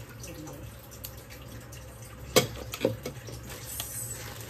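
Thin plastic carry bag rustling and crinkling as it is handled and reached into, with two sharper crackles about halfway through, over a steady low hum.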